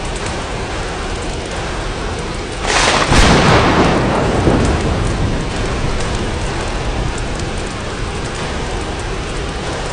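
Steady rain falling, with a sudden thunderclap about three seconds in that rumbles and fades away over several seconds.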